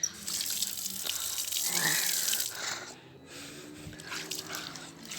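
Water running and splashing down a toy waterfall, a steady hiss that stops about three seconds in as the flow runs out.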